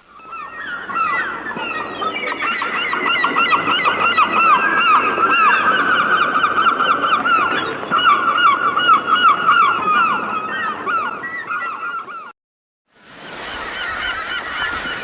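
A large flock of birds calling all at once, many short overlapping honk-like calls. The recording cuts off abruptly about twelve seconds in, and after a second of silence another flock recording starts.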